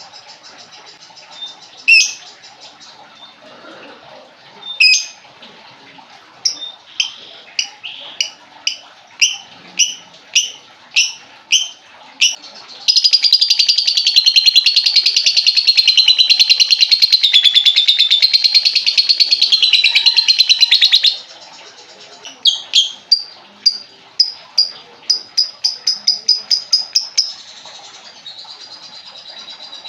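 Lovebird song. Sharp high chirps come first singly, then about one a second, and build into a long, rapid, unbroken chattering trill of about eight seconds, the drawn-out song keepers call ngekek. A run of chirps follows that speeds up and stops near the end.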